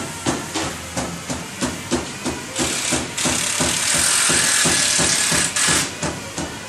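A loud hiss, like air escaping under pressure, starting about two and a half seconds in and lasting about three seconds, over a steady ticking of about three ticks a second.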